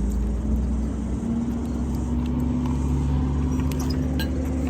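A motor vehicle's engine runs close by with a steady low rumble, its pitch creeping slowly upward. A few light clicks come near the end.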